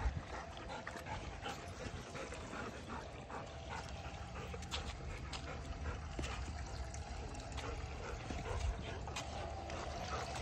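Faint trickle of water from a dog drinking fountain, with small scattered clicks and scuffs from the dogs crowding around it.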